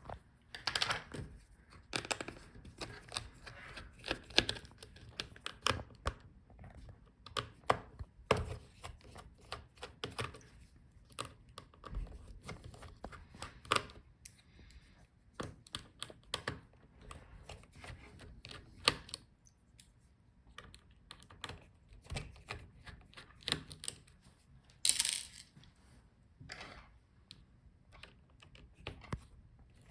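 Irregular small clicks, taps and scrapes of a screwdriver, screws and plastic connectors as a laptop's motherboard cables are unplugged and its screws taken out. One louder, brief rustling scrape comes about 25 seconds in.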